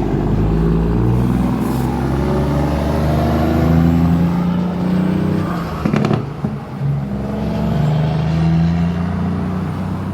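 Motor vehicle engine running in busy road traffic, its pitch rising and falling as it speeds up and slows. A brief knock about six seconds in.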